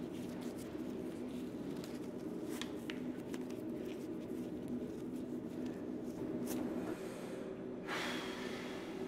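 Shoelaces being pulled and tied on a sneaker: soft rustles and small clicks over a steady hum. About eight seconds in comes one sharp, loud breath blown out through puffed cheeks.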